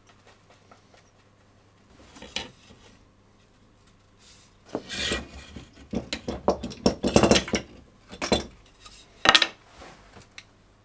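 Oak boards being handled on a wooden workbench: wood knocking and scraping against the bench top as they are moved into place, a few scattered knocks at first, then a busy stretch of clattering and sliding in the second half.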